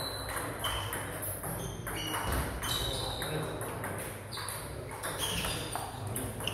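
Celluloid-style table tennis ball being struck back and forth in a rally: repeated sharp ticks of ball on bats and table, about two a second.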